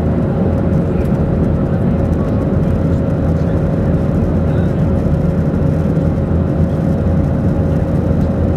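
Boeing 737-800 cabin noise in flight: a loud, steady rush of airflow and CFM56 engine noise, with a faint constant tone in it.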